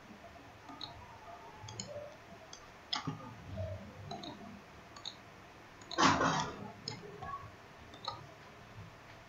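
Computer mouse clicking several times at irregular intervals, placing the points of a curve. About six seconds in there is a louder half-second rush of noise.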